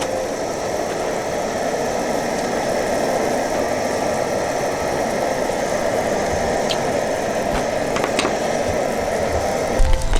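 Camping single-burner gas stove running with a steady rushing flame noise while a pan of sauce is brought to the boil, with a few light clicks.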